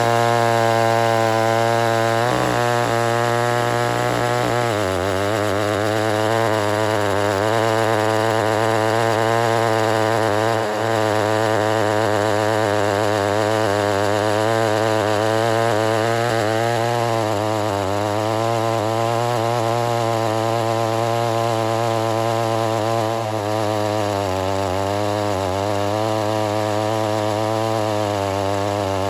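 Stock, not-yet-ported Homelite Super XL-923 82cc two-stroke chainsaw running hard without a break, its engine note wavering as if loaded in a cut. The pitch dips slightly about five seconds in.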